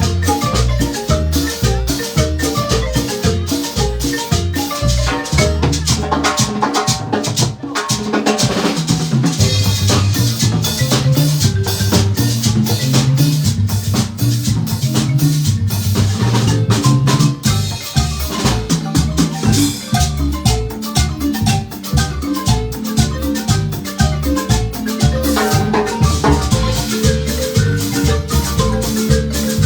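Guatemalan marimba band playing an upbeat piece: rapid mallet strokes on the marimba's wooden bars over a moving bass line, with percussion keeping a steady beat.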